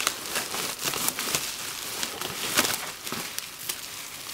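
Plastic bubble wrap crinkling and crackling as it is pulled out of a cardboard box, a dense run of small crackles with a few sharper ones.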